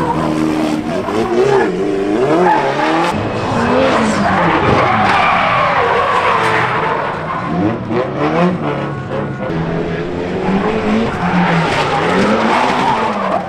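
Drift cars sliding on track: engines revving up and down on and off the throttle while the tyres screech. The tyre noise swells loudest in the middle and again near the end.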